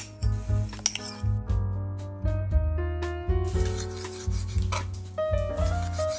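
Instrumental music with a pulsing bass line and a sequence of held notes. A rasping, scraping noise sounds over it from about three and a half to five seconds in.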